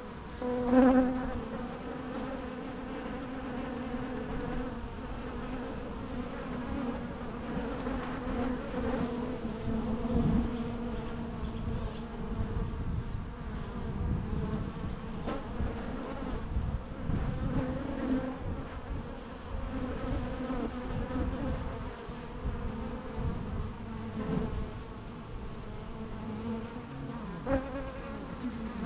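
Bees buzzing: a continuous drone of many wingbeats, wavering in pitch and level as individual bees come close and move off, with one passing loudly about a second in.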